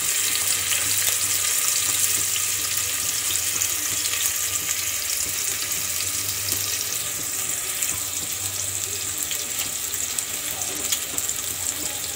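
Chopped onion frying in oil in a steel pot: a steady sizzling hiss that slowly grows a little quieter.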